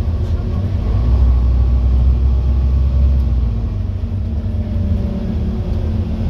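Scania N230UD OmniCity double-decker bus's five-cylinder diesel engine and drivetrain pulling along, heard from the upper deck as a low rumble that swells for a couple of seconds about a second in, then eases off. The bus is a very tired one.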